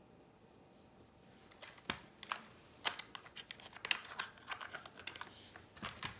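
Hundred-board number tiles clicking and rattling against each other and a clear plastic container as a hand sorts through them, a run of irregular sharp clicks that is densest in the middle, then a tile set down on the board near the end.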